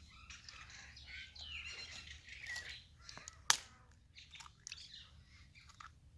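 Birds calling in the background, with one sharp crack about halfway through as a hen's egg is broken against the brass bowl, followed by a few faint clicks.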